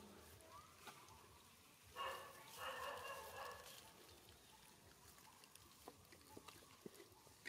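Newborn macaque giving two short, high-pitched cries, about two seconds in and again just after, over faint near-silence with a few soft clicks later on.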